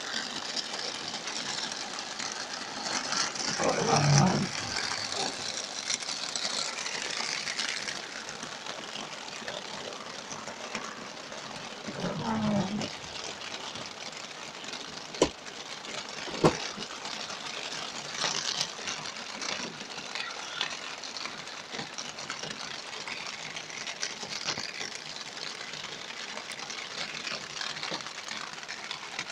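Heavy rain drumming on a car's roof and windshield, heard from inside the cabin as a steady hiss. Two louder swells come about four and twelve seconds in, and two sharp clicks a second apart come midway.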